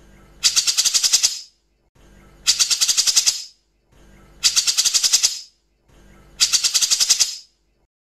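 Grey-cheeked bulbul (cucak jenggot) giving its harsh, rapid rattling call four times, each burst about a second long and about two seconds apart.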